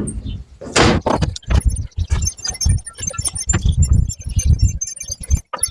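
Close, irregular rustling and knocking with light, high metallic jingling scattered through it, like small metal pieces shaken together.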